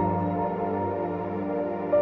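Ambient background music: soft sustained chords with a chord change near the end.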